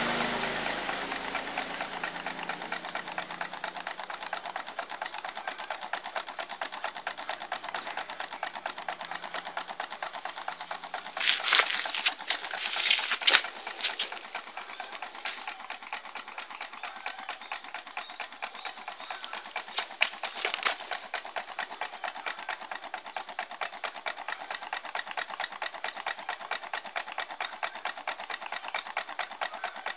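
Homemade Stirling engine, with an aluminium soft-drink-can displacer, running: its crank and linkage tick in a fast, steady rhythm. A few louder knocks stand out about eleven to fourteen seconds in.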